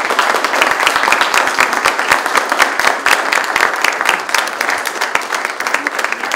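Audience applauding: many people clapping steadily, thinning slightly near the end.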